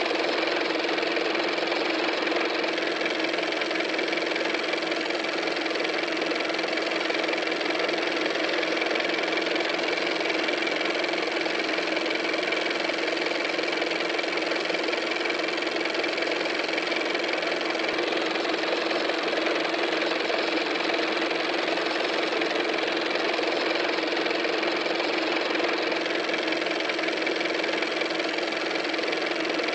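A steady, unchanging machine-like drone with a constant hum running through it.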